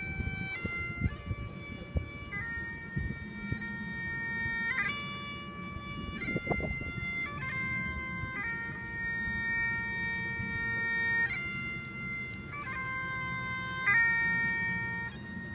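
Highland bagpipe playing a slow tune, long held notes moving step by step over the pipe sound.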